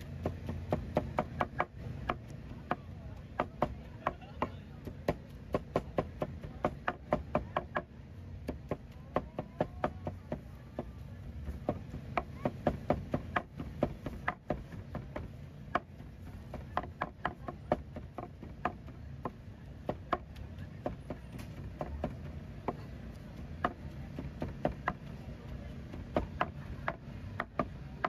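Steel cleaver chopping braised pork on a plastic cutting board: quick runs of sharp knocks, up to about four a second, broken by short pauses, over a steady low background hum.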